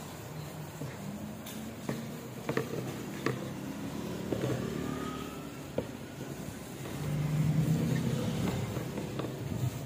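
Motor vehicle traffic running steadily, one vehicle growing louder about seven seconds in, with light clicks and rustles of handling food in a plastic glove.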